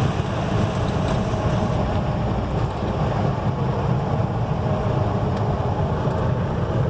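Cabin noise of a Piper PA-28-161 Warrior rolling out on the runway: its four-cylinder Lycoming engine at idle under a steady low rumble, the higher hiss of airflow dropping off about two seconds in.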